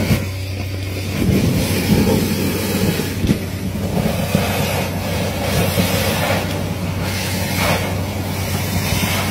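Vacuum truck's suction hose sucking leaves, twigs and muck out of a storm drain: a steady low drone of the suction with irregular rattling and clattering as debris is pulled through the hose.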